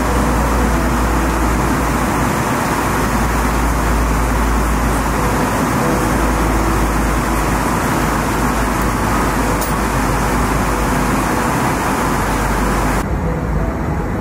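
Steady cabin noise inside an Airbus A320-200 in flight: an even rush of engine and airflow noise with a deep low rumble. Near the end the sound changes abruptly and loses some of its upper hiss.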